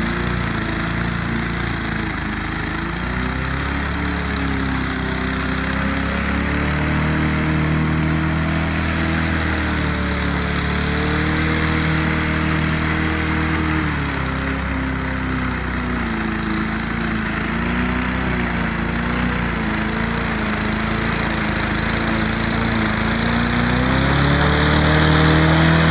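Small engine of a 2007 Snapper self-propelled lawn mower running fast with its throttle stuck wide open, its pitch wavering up and down and rising near the end.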